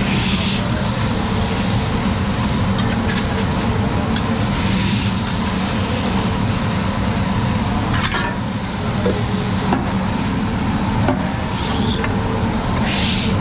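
Burger patties sizzling on a flat-top steel griddle while a metal spatula and grill scraper scrape across the steel, with a few sharp metal taps in the second half, over a steady low hum.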